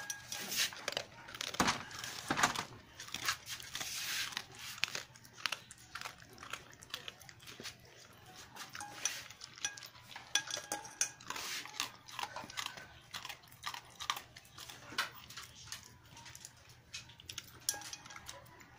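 A dog eating dry kibble from a metal bowl: irregular chewing, with clinks of kibble and muzzle against the bowl.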